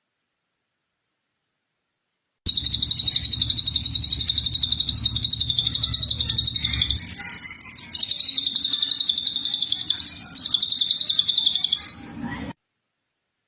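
A songbird's long, very fast, high-pitched trill. It starts abruptly about two and a half seconds in and runs on unbroken for about nine and a half seconds before stopping.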